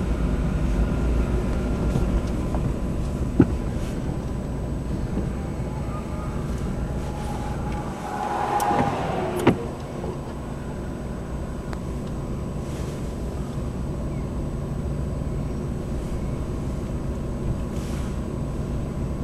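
Steady low rumble of a motor vehicle, with a sharp click about three seconds in and another about nine seconds in.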